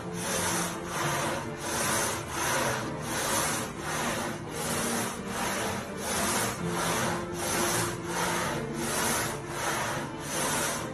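Background music track built on a rasping, scratchy noise beat about twice a second over faint held tones.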